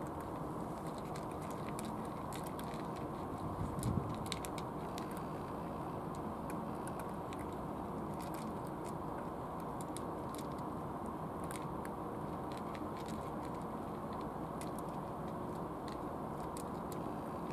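Cats chewing dry kibble: a scatter of small, sharp crunches over a steady low background rumble, with one low thump about four seconds in.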